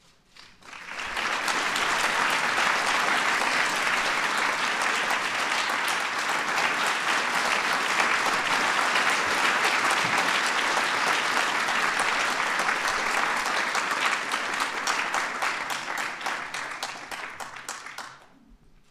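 A large audience applauding. The clapping swells in about a second in, holds steady and dense, then dies away near the end.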